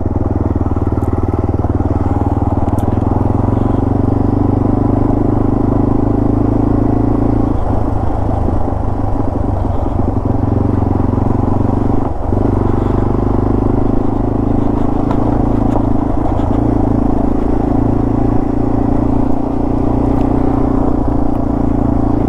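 Yamaha TW200's single-cylinder engine running steadily while the bike is ridden along a dirt trail, with a brief dip in engine speed about twelve seconds in.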